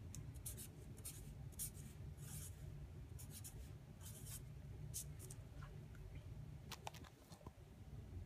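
Expo dry-erase marker writing on a white dry-erase board in a run of short, scratchy strokes for about five seconds, over a steady low hum. A few light clicks follow near the end.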